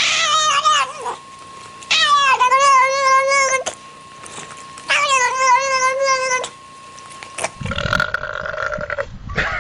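A cat yowling: three long, drawn-out calls with a wavering pitch. Near the end comes a shorter, steadier sound over a low rumble.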